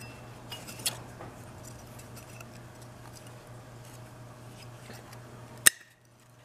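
Light metallic clicks and taps as a sheet-metal start-capacitor housing from an old grinder motor is handled and turned over, with one sharper click about five and a half seconds in, over a steady low hum.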